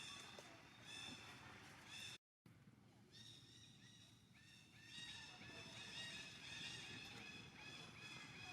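Baby monkey crying with repeated high-pitched squeals, broken by a brief dropout a little after two seconds, then a fast run of short squeaks from about five seconds in.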